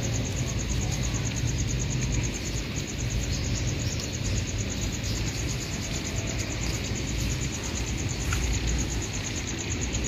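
Garden ambience: an insect trilling in a high, rapid, even pulse throughout, over a low steady hum.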